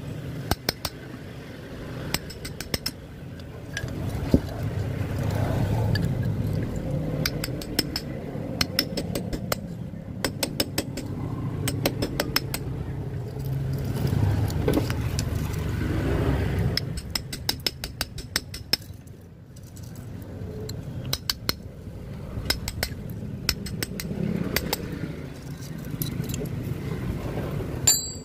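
Metal tool clinking and scraping against a motor stator and its old burnt copper windings as they are pried out: runs of sharp clicks and taps, over a low background rumble.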